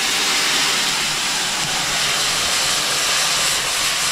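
Loud, steady sizzling hiss from a big cooking pan over a wood fire.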